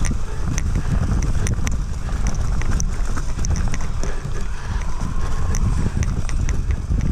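Foes Mutz fat bike riding over dry, leaf-covered singletrack: a steady low rumble of wind and tyre noise on the camera microphone, with irregular sharp clicks and rattles from the bike.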